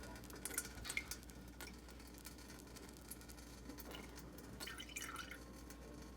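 Whey dripping from a squeezed cheesecloth bundle of curds into a pan below. The drips are faint and scattered, bunched in the first second or so and again around four to five seconds in.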